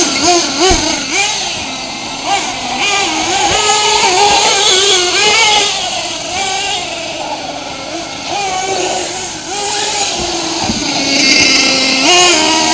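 Small two-stroke nitro engines of 1/8-scale RC trucks, high-pitched, repeatedly revving up and dropping back as the drivers work the throttle through the turns.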